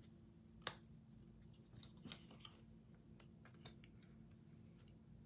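Near silence with a few faint clicks and small rustles from a trading card being handled and set aside.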